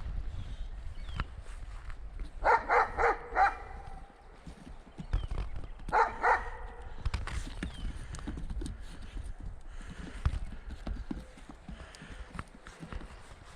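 Goat bleating: a quavering call broken into about five quick pulses a couple of seconds in, then a shorter call of two pulses, with scattered knocks and shuffling of hooves around it.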